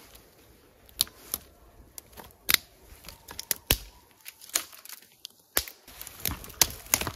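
Twigs and small dry sticks snapping and being handled while firewood and tinder are gathered: a string of sharp, irregularly spaced cracks and crackles, a dozen or more in a few seconds.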